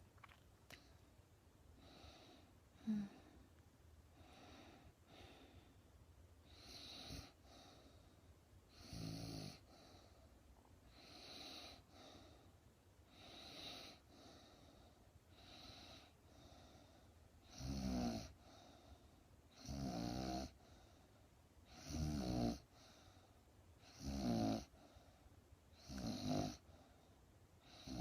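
A sleeping woman snoring, one snore about every two seconds. The snores are soft at first and grow much louder and rougher a little past halfway.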